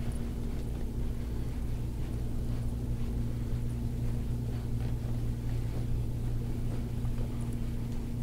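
A steady low electrical hum with a low rumble beneath it, unchanging throughout.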